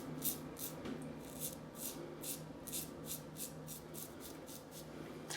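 Gillette Tech safety razor scraping through lathered stubble in short strokes, about three a second, coming closer together near the end of the second pass.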